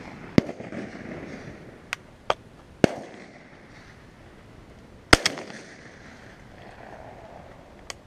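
Shotgun shots around a dove field: about seven sharp cracks, some nearer and some farther off, several trailing a short rolling echo. The loudest is a quick pair about five seconds in.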